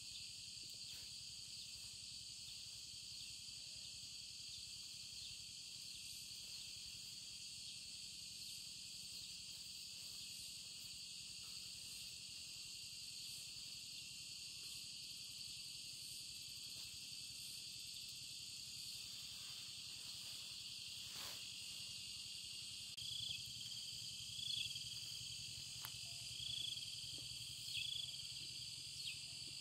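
Steady chorus of insects buzzing at a high pitch. Near the end, short high chirps join in, repeating about once a second.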